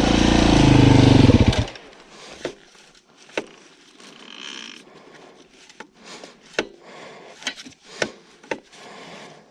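Beta 500 RR-S dirt bike's single-cylinder four-stroke engine running, then cutting out abruptly about a second and a half in. Scattered clicks and knocks follow in the quiet.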